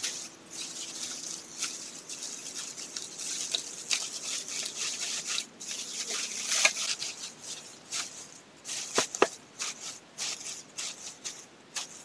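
Dry straw rustling and crackling as gloved hands press and shape it into a round nest basket, with irregular small snaps and two sharper cracks about nine seconds in.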